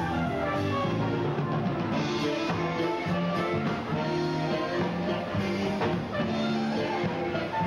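Live band music with a drum kit, a flugelhorn playing the melody.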